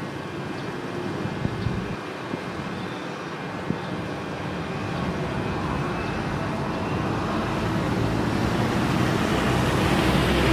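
Jet airliner engines, a steady roar growing gradually louder throughout as the aircraft approaches.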